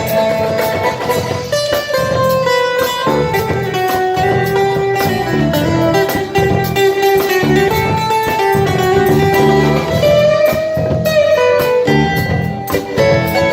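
Music with a guitar playing a melody of long, bending notes over a steady beat and bass.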